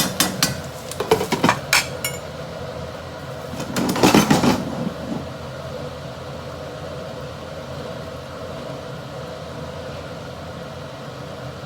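A metal spatula clinking and scraping against a wok while udon is stir-fried, with a louder rush of sizzling noise about four seconds in. A steady mechanical hum runs underneath and is left on its own for most of the second half.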